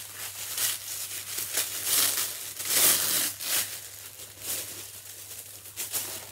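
Tissue paper being unwrapped and handled, rustling and crinkling in irregular bursts, loudest about three seconds in.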